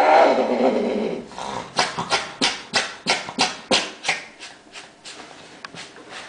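A female Siberian cat in heat, mounted by a tom, ends a long moaning yowl that falls in pitch and fades within the first second. It is followed by a run of short hissing breaths, about three a second, that die away after about four seconds.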